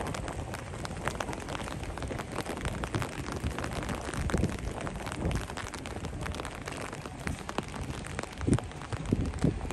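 Outdoor street ambience with a dense crackling patter, and a few low thumps near the end.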